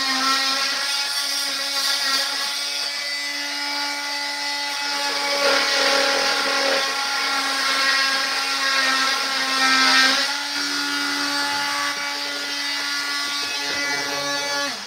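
A handheld cordless power tool runs steadily with a buzzing hum, cutting into hardwood floorboards, and stops abruptly at the end.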